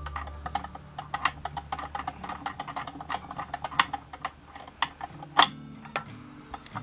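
Light, irregular clicking and ticking, several clicks a second, with one sharper click about five seconds in, from a rotary fly-tying vise being spun to wrap a floss body onto the hook.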